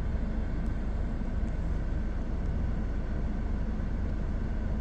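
Mahindra Scorpio N's 2.2-litre four-cylinder turbo-diesel running steadily at idle, heard from inside the cabin, as a manual diesel particulate filter regeneration is being started.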